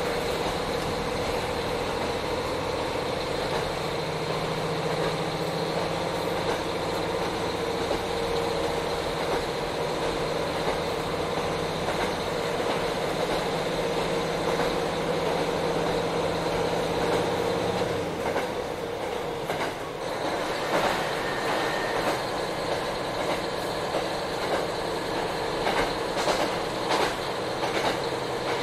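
KiHa 40 diesel railcar running, heard from inside the car: a steady diesel engine drone over rail noise until about two-thirds through, when the engine note drops away and the car runs on with wheel and rail noise and a few clicks of the wheels over rail joints.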